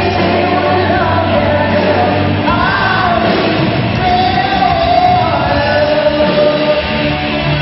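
Rock band playing live: a man singing over electric guitars.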